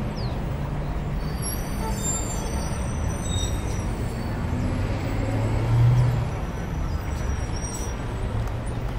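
Steady rumble of road traffic, swelling as a vehicle passes about six seconds in, with a few faint high-pitched squeaks in the first few seconds.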